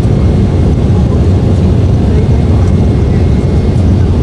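Airplane during takeoff: a loud, steady low rumble of engines and rushing air.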